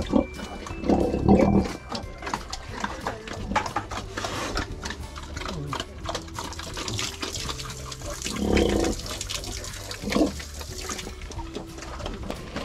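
A sow grunting in a pen, two louder grunts about a second in and again about two-thirds of the way through, amid rustling and small clicks.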